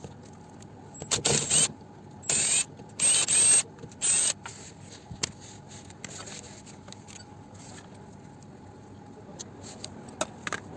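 Four short bursts of a ratcheting tool with a 5 mm hex bit turning out oil sump bolts.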